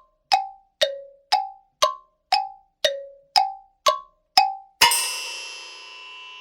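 Comedy sound effect: a run of short, pitched metallic dings, about two a second, stepping between a few different notes. Near the end it lands on a bright crash with many ringing tones that fades slowly.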